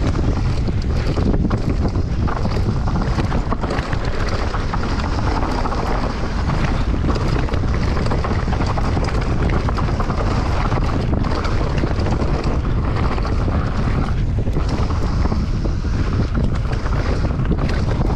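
Wind buffeting the microphone of a camera on a mountain bike riding fast down a dirt singletrack, mixed with the tyres rolling over dirt and stones and the bike's small rattles and knocks.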